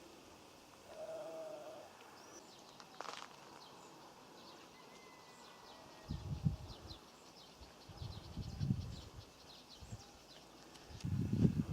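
A farm animal bleats once, a short wavering call about a second in. Later come a fast run of light high ticks and three louder low rumbling bursts, the last and loudest near the end.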